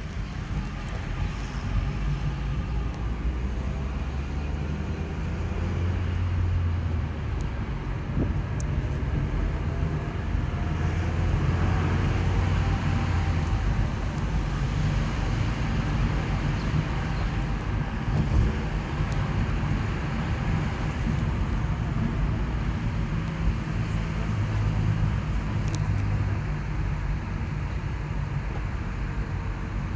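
Road and engine noise inside a moving taxi's cabin in city traffic: a steady low rumble with tyre hiss, and faint tones that rise and fall in pitch through the middle as the car speeds up and slows.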